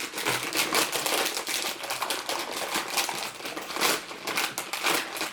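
Plastic cookie packaging crinkling continuously as it is handled.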